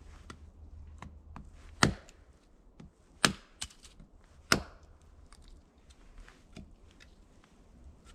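Axe chopping wood: three hard blows about a second and a half apart, with a few lighter knocks between and after.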